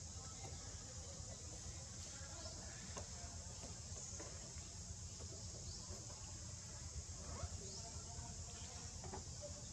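Steady high-pitched insect chorus over a low rumble, with scattered faint short chirps and ticks.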